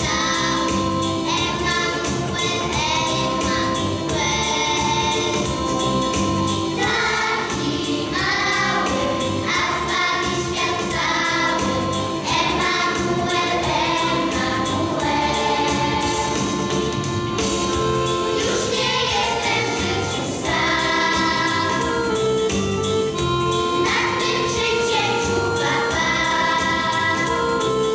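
Children's choir singing a song in unison over instrumental backing with a steady beat.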